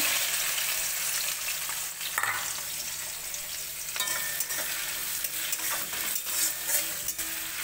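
Chopped onions sizzling in hot oil with whole spices in a kadai, the sizzle surging as they go in and settling a little as they are stirred, with scrapes and knocks of the spoon against the pan.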